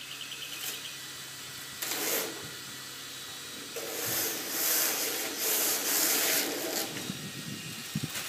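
Protective plastic film being peeled and pulled off a roll-up awning's housing, rustling and crinkling in bursts: once about two seconds in, then at length from about four to seven seconds.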